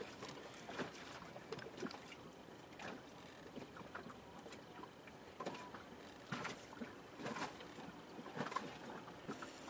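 Faint small clicks and rustles of hands twisting bare copper strands together to splice two coaxial cables, over a low steady hiss.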